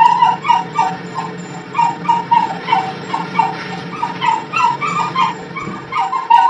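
A small animal crying in a fast run of short, high yelps, about three a second, over a steady low hum.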